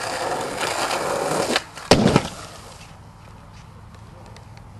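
Skateboard wheels rolling on asphalt, then two or three loud, sharp wooden clacks of the board about two seconds in, after which the rolling stops.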